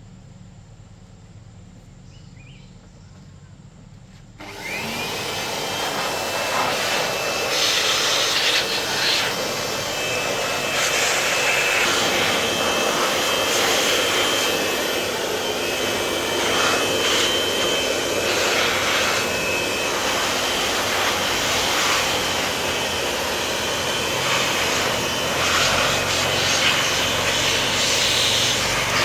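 A high-speed motor starts suddenly about four seconds in and runs loudly, its whine rising briefly as it spins up and then holding steady over a heavy rushing noise that swells now and then.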